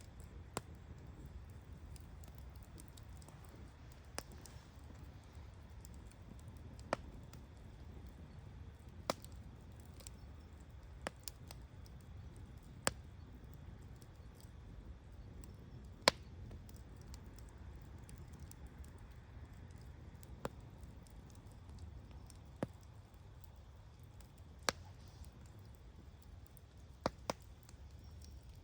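Wood bonfire burning with a faint low rumble and sharp crackling pops every two or three seconds, the loudest about halfway through.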